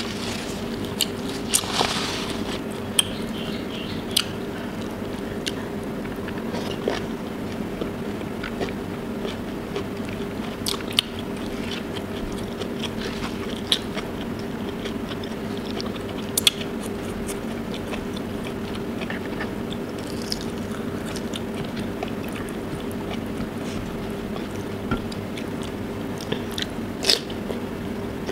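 Close-up eating sounds: chewing with wet mouth clicks and occasional crunchy bites of prawn, rice and vegetables, over a steady low hum.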